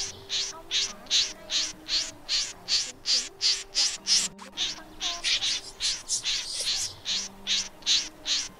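Common snipe giving short, sharp calls over and over in an even rhythm, about three a second, with a brief break about four seconds in. It is the snipe's flock-gathering call.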